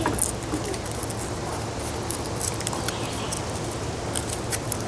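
Rustling, scratching and light clicking of a small model plane kit's wing being worked into its slot by hand, many small irregular ticks throughout, over a steady low hum.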